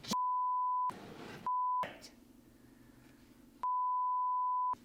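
Three censor bleeps, each a steady pure beep that replaces the sound beneath it: a long one, a short one, then after a gap another long one, blanking out cursing.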